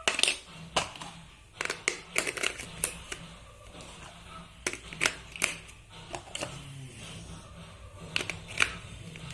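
Batteries being fitted into a plastic toy bubble gun's battery compartment by hand: a string of irregular plastic clicks, taps and knocks, loudest in the first three seconds and again near the end.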